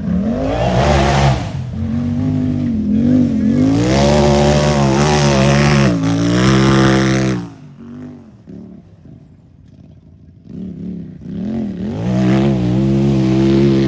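Unlimited-class UTV engine revving hard under full throttle. Several seconds of rising and falling revs, a lull with a few short throttle blips about halfway, then another long hard rev near the end.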